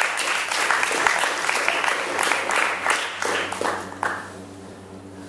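Audience applauding at the end of a song, the clapping thinning and dying away about four seconds in.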